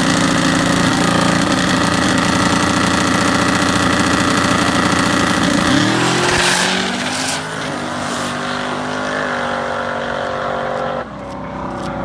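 Drag car's engine held at steady high revs for about six seconds, then the revs fall away with a short rush of hiss. It runs on at lower revs with a few small rises in pitch before the level drops sharply near the end.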